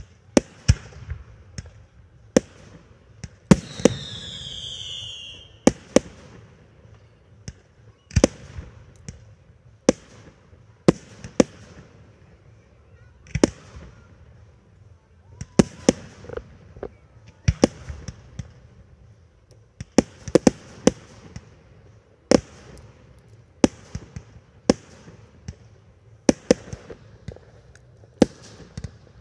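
Fireworks display: aerial shells bursting one after another, with a sharp bang every second or so. A high whistle falls in pitch about four seconds in.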